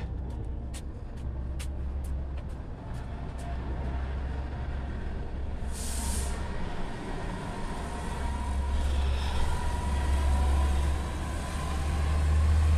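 Low, steady rumble of road vehicles, with a few light clicks in the first seconds and a short, sharp hiss about six seconds in. The rumble grows louder toward the end.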